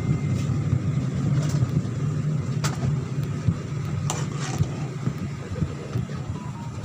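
Steady low vehicle rumble, with a few sharp clicks about two and a half and four seconds in.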